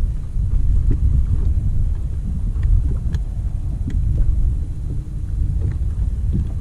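Wind buffeting the microphone: a loud, uneven low rumble, with a few faint ticks near the middle.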